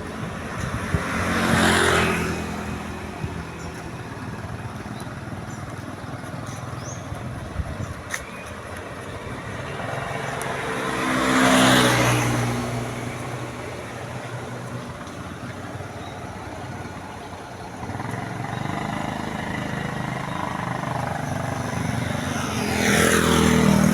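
Road traffic passing close by: three vehicles go past, each swelling up and fading away, with a steady engine hum between them.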